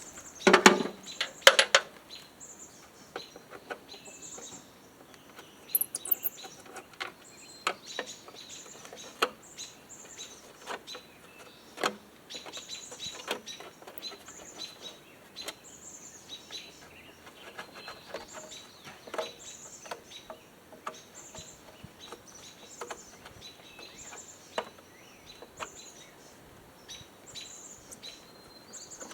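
Songbirds chirping over and over, with scattered clicks, clinks and knocks from tools and parts as a push mower is taken apart; the loudest is a quick clatter of knocks in the first couple of seconds.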